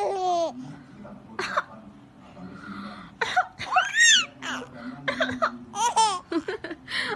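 A woman coughing in short bursts while a baby laughs and squeals back, with high, rising-and-falling squeals about four and six seconds in.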